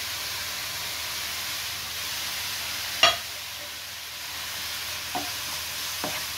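Coconut and jaggery filling with cashews and raisins sizzling steadily in a nonstick frying pan as the jaggery syrup cooks down. There is a sharp knock about three seconds in, and a few light wooden-spoon knocks against the pan as stirring starts near the end.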